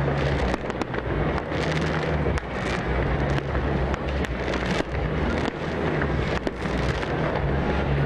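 Large fireworks display going off: many bangs and crackles in quick, irregular succession, over a steady low hum.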